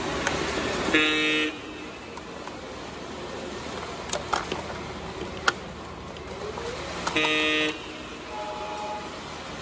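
O gauge model diesel locomotive's electronic sound-system horn giving two short blasts, about six seconds apart, over the steady running noise of the train rolling on the track, with a few sharp clicks in between.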